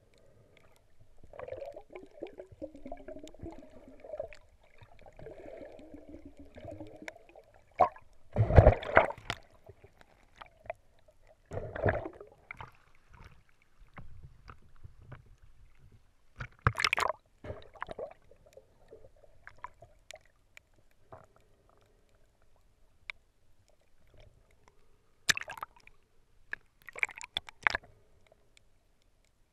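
Muffled water sloshing and gurgling around a waterproof action camera as it moves through the water and bobs at the surface, with a faint wavering hum beneath. Several louder sudden splashes break in, the biggest about a third of the way in and two more near the end.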